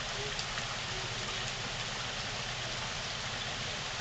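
Steady rain falling on wet pavement.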